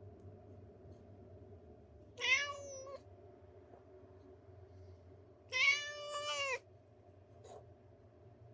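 Persian cat meowing twice: a short meow about two seconds in and a longer, drawn-out meow a few seconds later, over a faint steady background hum.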